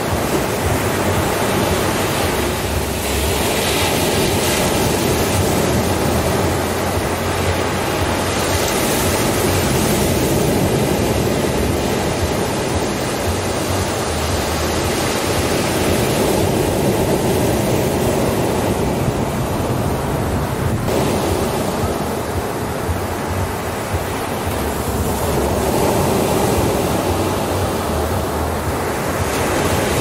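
Ocean surf breaking and washing up a sandy beach: a steady rushing wash that slowly swells and eases as the waves come in.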